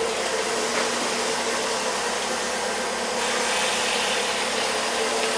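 Steady hiss of mains water rushing through the hose of a cooling-system flushing rig, getting a little brighter about three seconds in.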